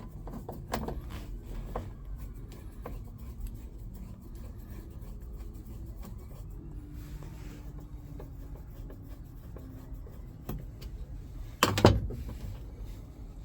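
Scattered clicks and rubbing as a metal plate and its bolts are handled and fitted into the car floor, with one loud clunk near the end.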